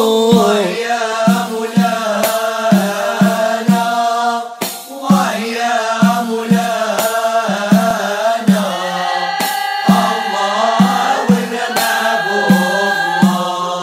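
Moroccan Issawa Sufi devotional chant: male voices singing a long, drawn-out melodic line over a steady beat of about two strokes a second.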